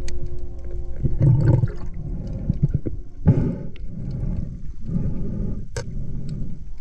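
Muffled underwater noise picked up by a camera in a waterproof housing: a continuous low rumble of moving water, rising and falling in surges, with a few sharp clicks and knocks, one about three-quarters of the way through.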